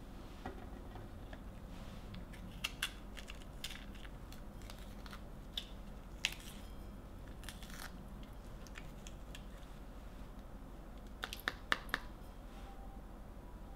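Fingers tearing the seeds and white pith out of halved green peppers (Japanese piman): a run of small crisp snaps and crunches, with a cluster of sharper snaps near the end.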